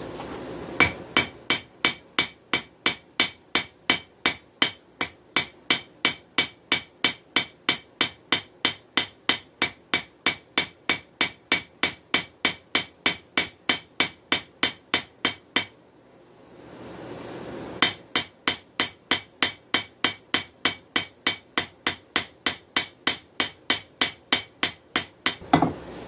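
Hammer blows on hot 416 stainless steel over an anvil, drawing out a knife blade: a steady run of ringing strikes, about three a second. The strikes pause for about two seconds midway, then carry on.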